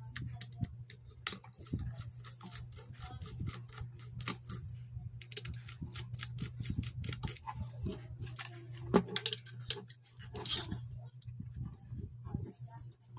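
Screwdriver working the screws on a speaker amplifier board's aluminium heatsink bracket: a run of irregular small clicks and metal taps, with a louder click about nine seconds in, over a steady low hum.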